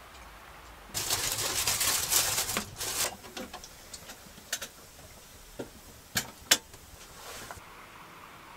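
Loud rustling and shuffling of movement for about two seconds, as a person gets up from a table, followed by a few scattered sharp clicks and knocks and a short soft hiss.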